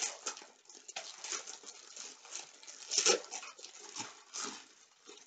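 Small plastic bags of round resin diamond-painting drills being handled, the tiny beads rattling in short, irregular bursts, loudest about three seconds in.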